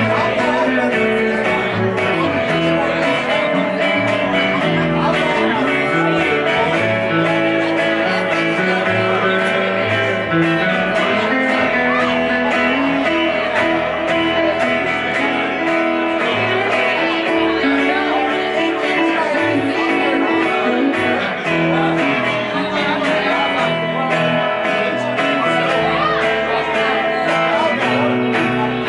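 Small country band playing live: electric guitar, strummed acoustic guitar and plucked upright double bass.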